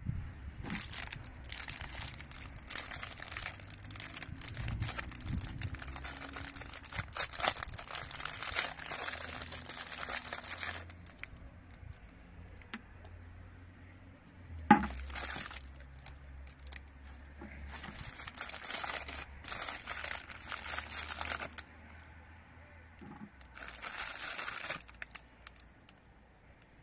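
Clear plastic packaging bag crinkling and rustling as it is handled and opened, in several irregular bouts, with one sharp click about fifteen seconds in.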